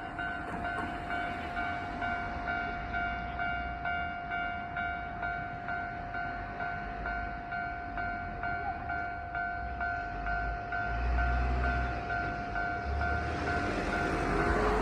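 Japanese level-crossing alarm ringing, a steady repeating ding a few times a second. In the last few seconds the low rumble of an approaching train grows beneath it.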